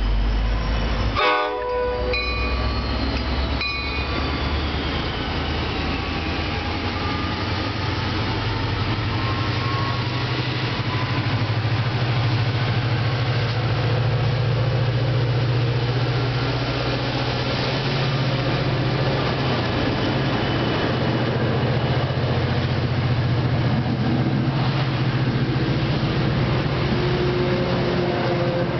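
MBTA commuter rail diesel locomotive gives short horn blasts in the first few seconds. Its engine's low drone then builds as it pulls its bilevel coaches past close by.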